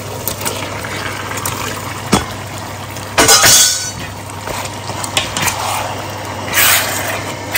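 Metal utensil clinking and scraping against a stainless-steel cooking pot as the beef and onions are stirred, with a louder clatter about three seconds in and another near the end.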